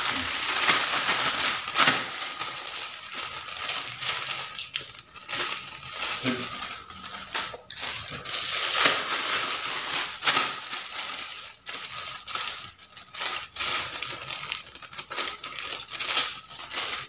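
Thin plastic bags crinkling and rustling on and off as they are handled by hand and packed with bait dough.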